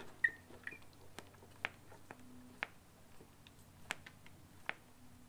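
Primer bulb on a Wild Badger 26cc two-stroke leaf blower being pumped with a thumb: a series of faint, soft clicks roughly two a second, with small squeaks on the first presses, drawing fuel into the carburettor before starting.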